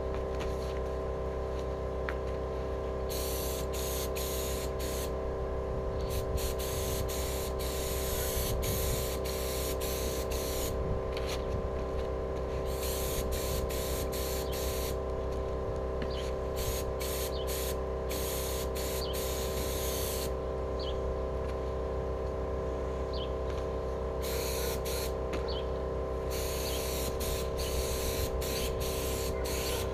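Air-fed HVLP paint spray gun hissing as it sprays black acrylic enamel onto steel wheels, the hiss starting and stopping every few seconds as the trigger is pulled and released, over a steady hum.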